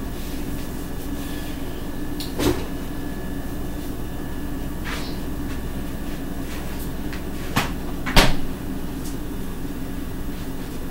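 A few short household knocks and clicks over a steady low room hum; the loudest comes about eight seconds in.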